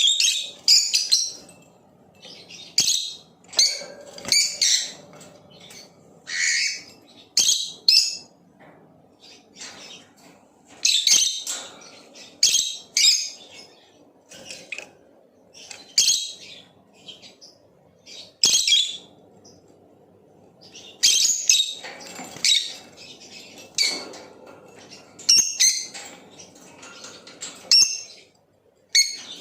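Lovebird chirping: short, shrill high-pitched chirps in quick bursts, repeating every second or so with brief pauses between.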